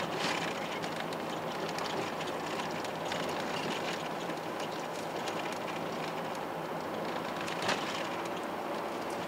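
Road noise inside a moving car's cabin: a steady rumble of tyres and engine with small rattles, and one sharper knock near the end.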